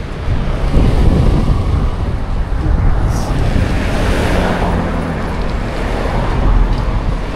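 Wind buffeting the microphone, with a car passing on the road that rises and fades around the middle.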